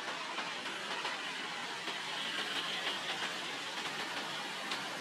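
Steady outdoor street ambience: an even hiss of distant traffic and background noise, with a faint high whine briefly in the middle.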